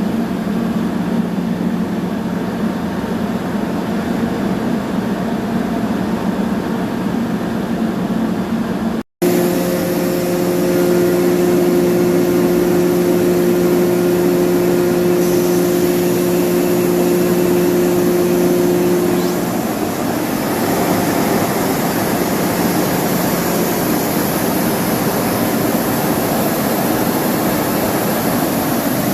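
Industrial air compressor machinery running: a loud, steady hum with a few held tones. The sound breaks off for an instant about nine seconds in, and the held tones drop out a little before twenty seconds.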